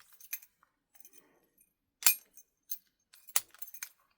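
Keys clinking and a key being worked in a reassembled American Lock 1100 padlock, checking that it still operates: a string of sharp metallic clicks, the loudest about two seconds in and a quick cluster after three seconds.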